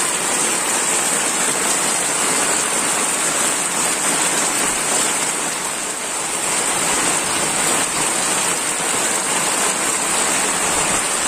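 Heavy rain falling steadily, an even, dense hiss of water.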